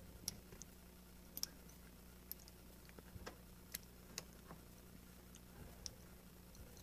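Scattered faint clicks and ticks of small steel trigger-group parts and a brass pin being fitted together by hand, over a low steady hum.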